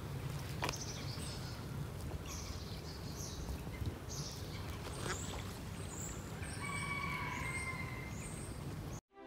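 Birds chirping outdoors in short high calls over a steady low rumble, with one longer held call about two-thirds of the way through. The sound cuts off suddenly near the end.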